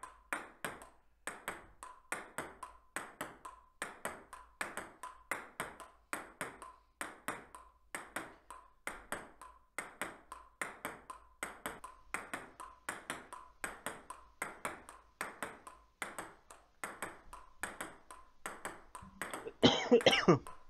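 Solo table tennis rally against the folded-up half of a table: the ball clicks sharply off the paddle, the tabletop and the upright board in a steady rhythm of about three hits a second. A brief loud voice cuts in near the end.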